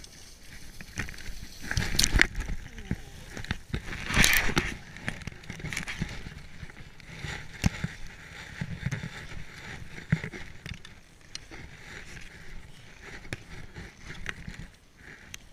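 Skis scraping and hissing over packed snow during a downhill run, with rushing noise and scattered knocks. The scraping is loudest in two surges about two and four seconds in.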